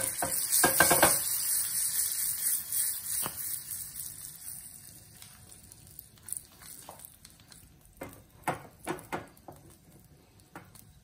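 Dried red chilies sizzling in hot butter and oil in a small tempering pan, as a tadka. The sizzle is loudest at first with a few crackles and dies away over about four seconds, leaving faint scattered ticks.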